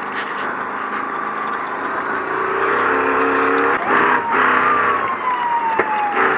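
Off-road race vehicle engine running loud, its note swelling a few seconds in. A siren glides up in pitch and then slowly winds down over the last couple of seconds. A sharp knock comes near the end.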